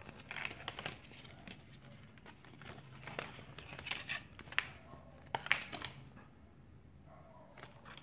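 Fold-out paper Shopkins checklist rustling and crinkling as it is unfolded and handled, with irregular crackles that are sharpest and loudest around the middle.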